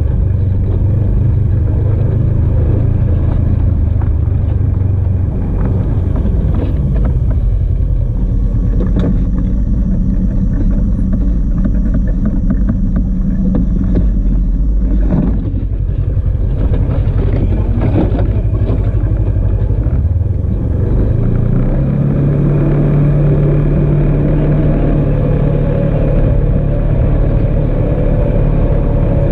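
Engine of an off-road vehicle running steadily while driving a rock-and-sand trail, with a few knocks partway through. About three-quarters of the way in, the engine pitch steps up and holds higher.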